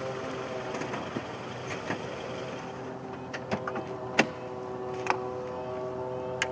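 A sedan's engine running with a steady hum, while the driver's door unlatches and swings open about three and a half seconds in, followed by a few sharp knocks as the driver climbs out.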